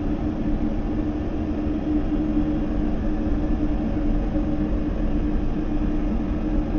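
Dark horror background ambience: a steady low rumble with a held droning tone over it, unchanging throughout.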